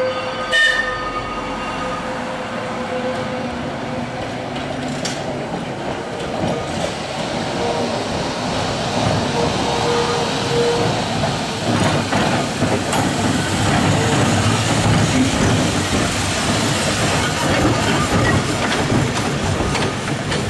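Vintage electric tram running along the track toward the listener, with a steady whine at first. Its wheels and running gear grow into a louder, denser rumble as it draws close, loudest in the last few seconds.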